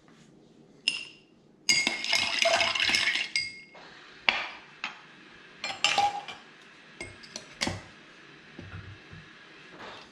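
Clinks and knocks of glassware and metal bar tools, such as a bar spoon and a cocktail strainer, against glass and a metal dish while an old fashioned is finished. About two seconds in comes a dense clatter lasting under two seconds, followed by scattered single clinks.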